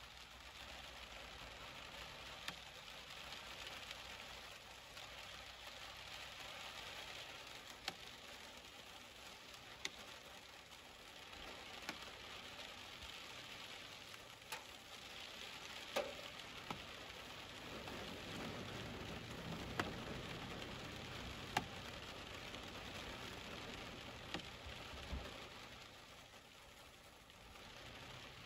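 Steady rain falling, a faint even hiss with scattered sharp ticks of single drops, about a dozen in all, and a low rushing swell in the middle.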